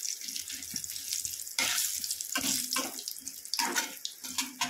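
Whole spices sizzling in hot oil in a steel kadhai, with a spatula scraping and knocking against the pan several times as they are stirred. This is the tempering stage of a curry masala.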